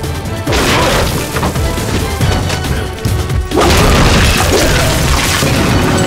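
Cartoon action score with heavy crashing impact effects: a crash about half a second in and a louder one about three and a half seconds in.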